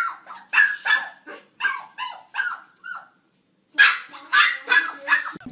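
A small black-and-white puppy yapping at its own reflection in a mirror: a quick run of short, high-pitched barks, about two a second, that breaks off for under a second just after the middle and then resumes.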